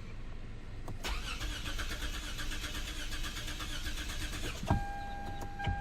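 Starter cranking a 2006 Lexus GS300's 3.0-litre V6 for nearly four seconds without it firing: a crank-no-start with no spark from any ignition coil, and a cranking sound the mechanic doesn't like. The cranking ends with a thump, and then a steady electronic beep begins.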